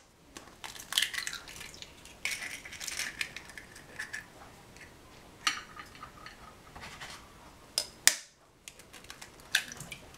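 Eggs being cracked and handled in the kitchen: irregular sharp taps and clinks against a dish, with brief crackling of shell.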